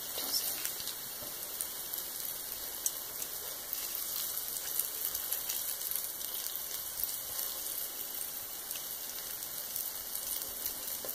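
Hot oil sizzling steadily around flour-coated rice balls frying in a skillet, with scattered small pops.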